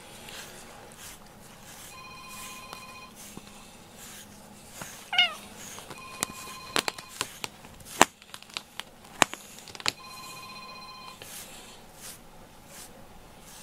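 A cat gives one short meow that falls in pitch, about five seconds in. A phone rings in the background in one-second rings about every four seconds, and several sharp clicks come between about six and ten seconds.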